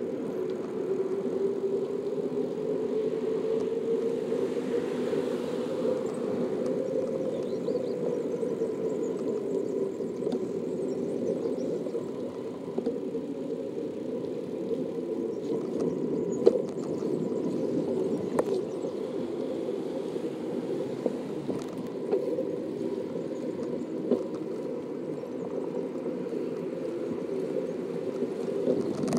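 Steady rolling noise of a bicycle ridden along a paved bike path beside road traffic, with a few sharp clicks in the second half.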